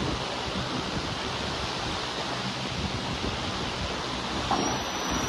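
Steady wind noise on the microphone, with a faint knock about four and a half seconds in.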